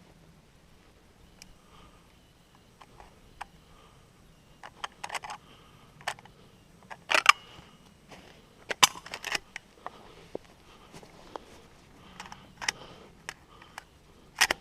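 Irregular clicks, taps and short rustles of handling close to the microphone, loudest about 7 and 9 seconds in.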